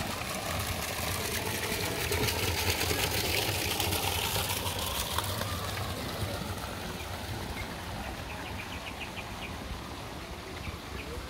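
Water from a fountain spout splashing into a pond, loudest in the first half and fading away, over a steady low rumble.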